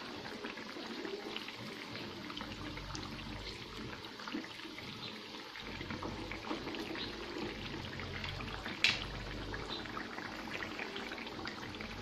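Carrot malpua deep-frying in hot oil: a steady sizzle with small crackles as they are turned with a slotted spoon. One sharp click about nine seconds in.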